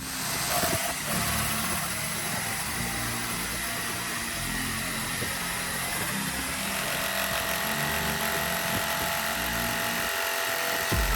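A power tool's electric motor running steadily with a high whine, starting abruptly.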